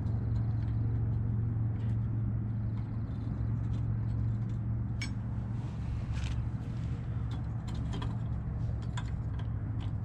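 A steady low mechanical hum throughout, with a few light metallic clicks and scrapes of a wrench and bolts as a gas-tank bracket is fitted back onto a snow blower engine.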